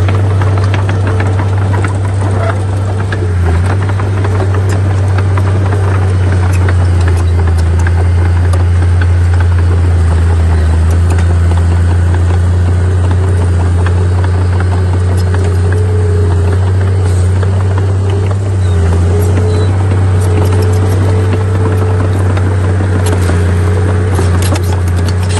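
Diesel engine of heavy earthmoving machinery running steadily and loudly, a deep, even drone that holds throughout.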